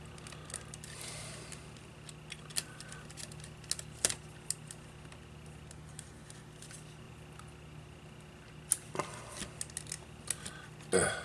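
Scattered small clicks and taps of hand tools and small plastic parts while a Sony Walkman cassette player is taken apart, a cluster of quick clicks near the end.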